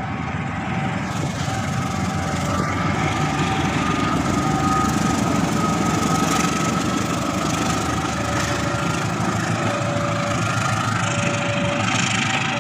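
KAI CC 206 diesel-electric locomotive passing close by with its diesel engine running, followed near the end by its passenger coaches rolling past. A level-crossing warning bell chimes in short repeated tones, alternating between two pitches.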